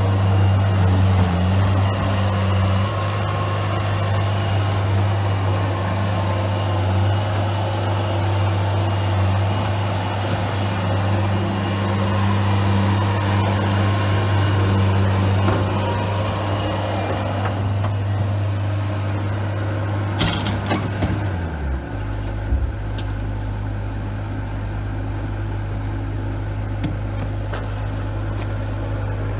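Bobcat S185 skid steer's diesel engine running steadily at raised revs, then about 21 seconds in the pitch drops and it settles to a lower, steady idle.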